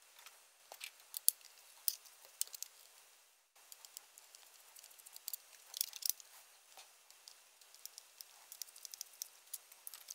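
Faint scattered clicks, taps and scrapes of hands and a small screwdriver working on an aquarium LED light's housing as it is taken apart, with a denser run of clicks about six seconds in.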